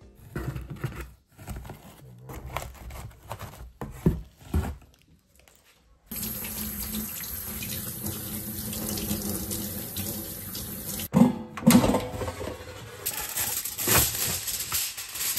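Light knocks and rustling as sweet potatoes are handled in a cardboard box. Then a kitchen tap runs steadily into a stainless steel sink while a sweet potato is rubbed clean under the stream by hand, and the water stops suddenly about eleven seconds in. Two sharp, loud clacks follow, with rustling and knocks around an air fryer basket near the end.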